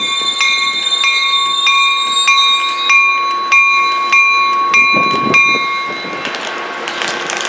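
A railroad bell ringing steadily, about two strikes a second, over the noise of a train. The bell stops about six seconds in.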